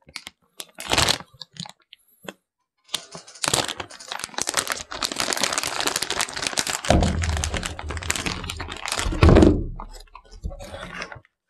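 Plastic snack bag being torn open slowly close to the microphone: a few short crackles, then a long run of crinkling and crackling plastic, with dull low handling bumps in the second half.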